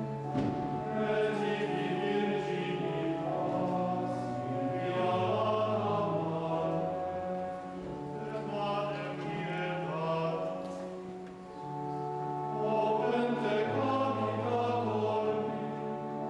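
Men's choir singing sacred Latin chant for a Tridentine High Mass, in long held notes that move step by step, with a brief break between phrases about two-thirds of the way through.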